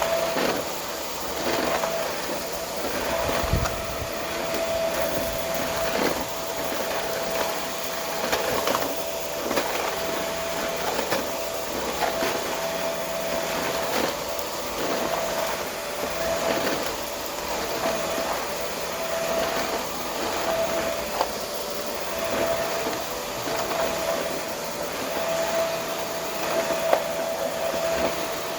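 Vacuum cleaner running with a steady motor whine, pushed back and forth over a surface so the sound swells and dips every second or two, with small clicks and rattles of debris.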